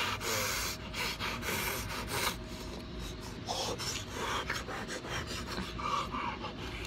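Wet sucking and slurping of a person sucking on octopus tentacles, in repeated short noisy bursts that are louder in the first couple of seconds.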